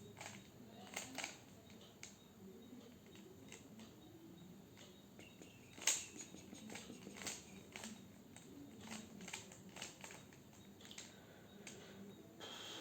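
A 3x3 Rubik's cube being turned by hand: irregular plastic clicks and clacks as its layers rotate, with one louder clack about six seconds in.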